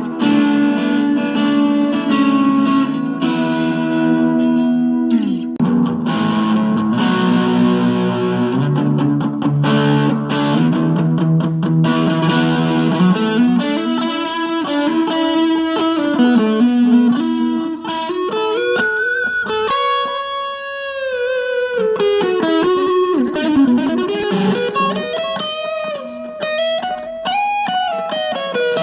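Electric guitar played through a Boss Katana Mini amplifier with distortion. It plays low riffs for about the first thirteen seconds, then a single-note lead solo with string bends and vibrato.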